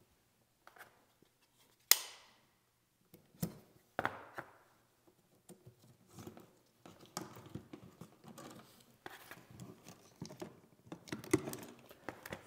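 Romex (NM) cable being stripped by hand: a few sharp clicks and snaps, the loudest about two seconds in, then soft rustling and crinkling of the plastic outer jacket as it is slit and peeled off the conductors.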